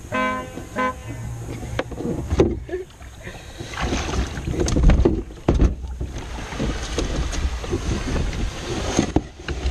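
Knocks, bumps and rubbing on a canoe as a man climbs aboard and settles in, with wind noise on the microphone; the loudest knocks come a little before the middle. Right at the start there are two short honk-like tones, the first about half a second long and the second a brief blip.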